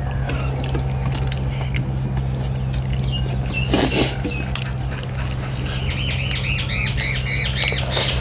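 Birds calling: one short squawk about four seconds in, then a quick run of high chirping notes near the end, over a steady low hum.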